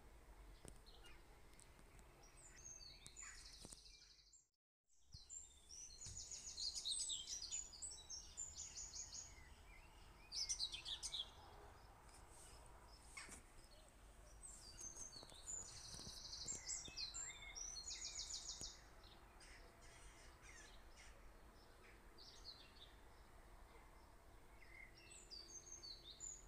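Faint small-bird chirping and quick trilling in clusters, over a low steady hum; the sound cuts out completely for about half a second around four and a half seconds in.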